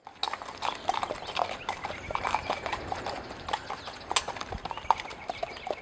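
Hooves of two Chilean horses walking on a wet dirt road: an uneven clip-clop of several hoof knocks a second.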